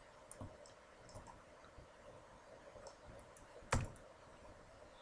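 Computer keyboard and mouse clicks: a few faint clicks, then one louder, sharper key press near the end as the numpad 1 key is struck.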